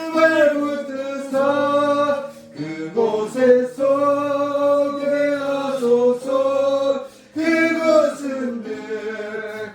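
A few voices singing a slow Korean hymn, holding long notes with short breaks between phrases.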